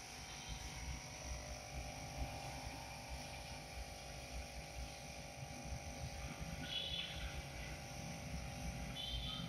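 A steady low mechanical drone and hum with a hiss over it, with a few faint short high chirps about seven and nine seconds in.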